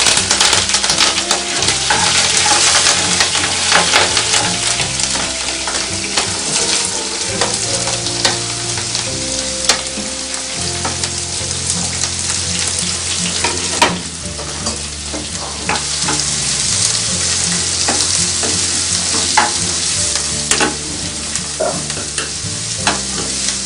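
Green chillies and chopped onions sizzling in hot oil with mustard seeds and cumin in a non-stick kadai, stirred with a spoon. The sizzle is loudest in the first few seconds, with scattered sharp ticks and clicks throughout.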